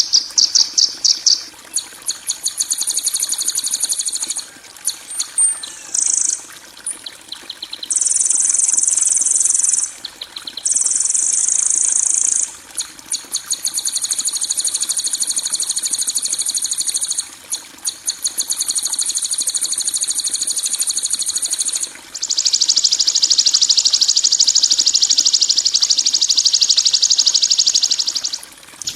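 Recorded harsh bird calls played as a songbird training track: rapid, high-pitched buzzy trills in phrases of two to five seconds with short breaks. A quick run of ticks opens it, a few short chips follow, and the loudest and longest trill comes in the last third.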